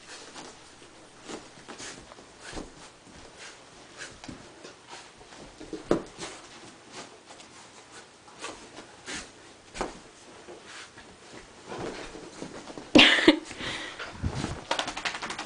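Young Lab/hound mix puppy tumbling and rolling on carpet: scattered soft scuffs and breathy noises, with one loud, sharp sound about thirteen seconds in.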